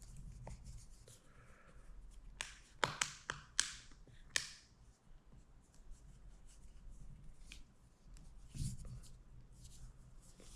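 Handling noise from a plastic phone case: a quick run of sharp clicks and taps a couple of seconds in, then fainter handling sounds.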